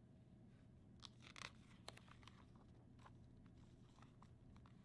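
Faint rustle and crackle of a picture book's paper page being turned and pressed flat by hand, a short cluster of soft crackles about a second in, then a few light ticks.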